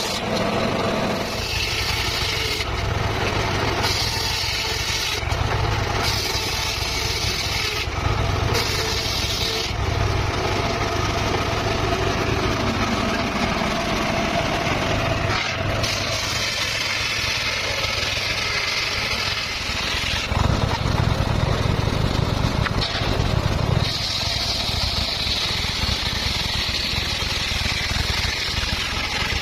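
Circular saw running steadily, with a higher hiss coming and going every few seconds as the blade cuts through the stock.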